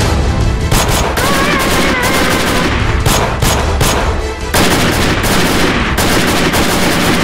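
Gunfire: several sharp shots fired in quick runs, with background music running underneath.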